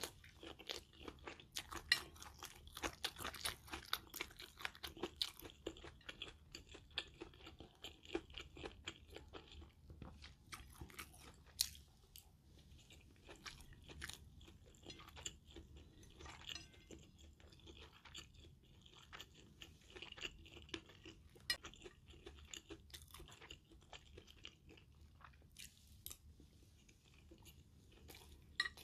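A person chewing a mouthful of stir-fried minced pork with Thai basil and rice close to the microphone, a run of irregular small crunching and mouth clicks. A metal spoon scrapes across a ceramic plate now and then.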